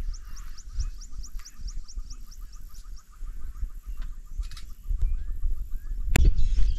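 A bird calling a rapid series of short, high, rising notes, about five a second, that stops about two seconds in. Wind rumbles on the microphone throughout.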